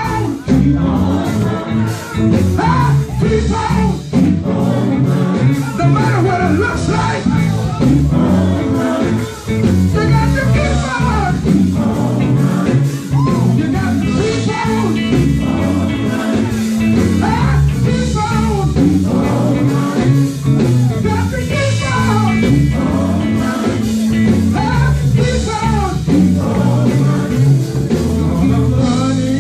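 Live gospel music: a male gospel group singing over a band with guitar and bass.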